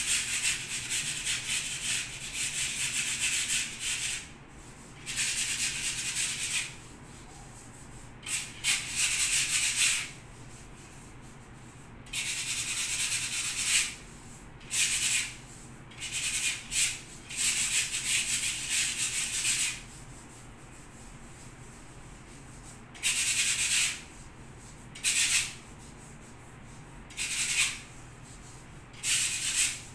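Hand sanding of a painted wall with sandpaper on a block, a hissing scrape that comes in spells of one to four seconds with short pauses between them.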